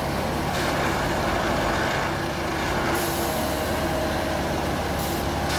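Plasser & Theurer 08-16 multiple tie tamper running steadily at the worksite: a diesel drone with machinery clatter, and brief rises of hiss about three and five seconds in.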